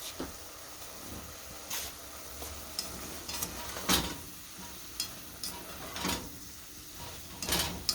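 Onions and tomatoes sizzling in a pan, with a steady hiss, and a stirring utensil clicking and scraping against the pan about eight times.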